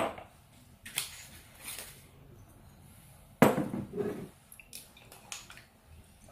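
Liquor bottles and small tasting glasses being set down and shifted on a counter: a knock at the start, a couple of short scrapes, a louder clunk about three and a half seconds in as a bottle is put down, then a few light clicks.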